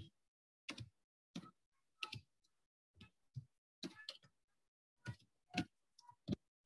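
A dozen or so short, faint clicks and taps at irregular intervals, with dead silence between them.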